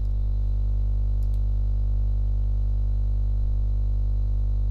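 Steady electrical mains hum with a buzzy row of overtones, loud and unchanging; two faint clicks about a second in.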